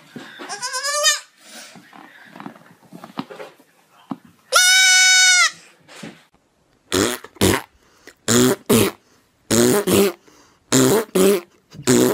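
A baby goat bleating: a short wavering bleat, then about four seconds in a louder, long, steady bleat. In the second half, short sounds come in quick pairs, about one pair every second and a quarter.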